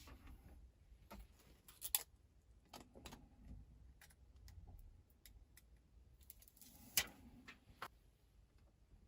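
Faint handling noise: scattered small clicks and crinkles of a plastic electrostatic sticker being pressed onto windshield glass, with two sharper clicks about two seconds in and again about seven seconds in.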